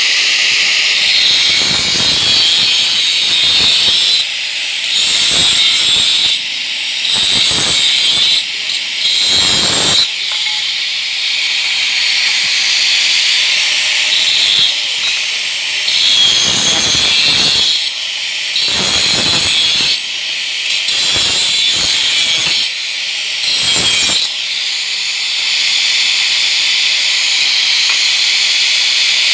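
Handheld angle grinder with a cutoff disc running with a steady high whine while it cuts square steel tubing. The disc bites into the metal in repeated short spells, heard as rougher grinding that comes and goes over the whine.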